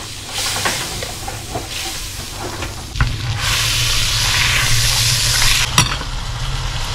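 Butter sizzling in a nonstick frying pan. A marinated T-bone steak is laid in about three seconds in and the sizzle grows louder, with one sharp click from the metal tongs near the end.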